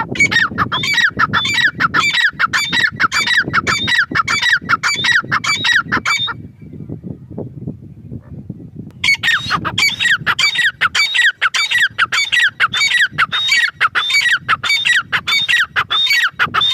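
Grey francolin calling: a fast run of repeated high, ringing notes, three or four a second, which stops after about six seconds, then after a pause of nearly three seconds starts again.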